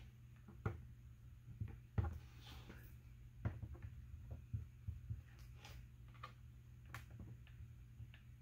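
Several light, sharp clicks and taps as a hot glue gun is handled and pressed along the corners of a plastic 3D-printed hive frame, over a faint steady low hum.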